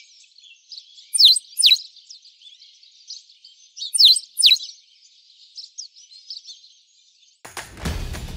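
Small birds chirping and twittering, with a pair of loud, quick downward-sweeping chirps about a second in and another pair about four seconds in. Near the end, music with drums comes in.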